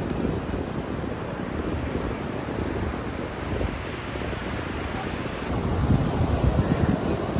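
Wind buffeting the microphone over the wash of ocean surf, with a stronger gust about six seconds in.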